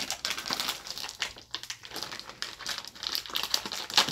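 A silver plastic-foil groundbait bag being pulled open by hand, crinkling and crackling irregularly, with a sharper crackle near the end.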